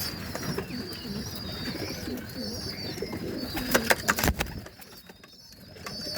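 Domestic pigeons cooing in a loft, with a high, warbling chatter of small birds over it. A few sharp clicks or knocks come about four seconds in, followed by a short lull.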